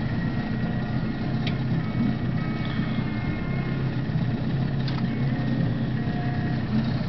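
Boat motor running steadily with a low hum, with two short sharp clicks.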